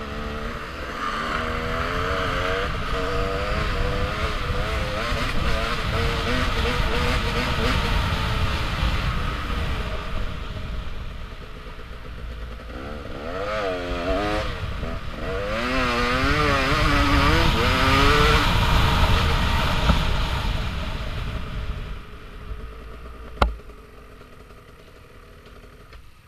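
Dirt bike engine revving up and down under the rider's throttle, its pitch rising and falling with each gear and throttle change. Near the end it drops to a low idle as the bike slows to a stop, with one sharp knock shortly after.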